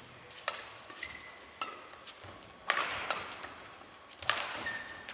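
Badminton shuttlecock struck back and forth with rackets in a fast doubles rally: about six sharp hits at uneven intervals, the loudest a little under three seconds in, with short squeaks of shoes on the court mat between them.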